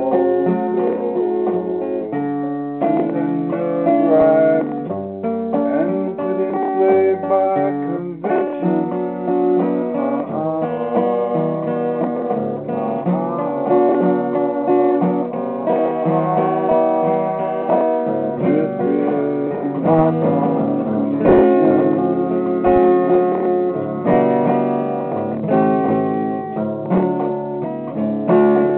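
Solo acoustic guitar improvisation, played without a break, with chords strummed and notes plucked.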